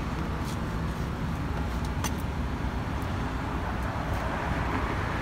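Steady low rumble of motor vehicles, with a few faint clicks.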